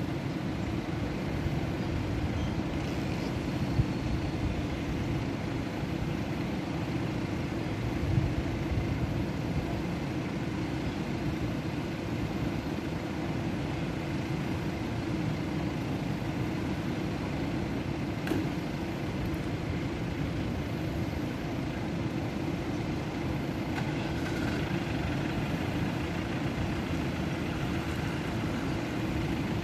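A river in flood rushing over and around a low-level bridge: a steady, deep rumble of fast water, with now and then a brief knock.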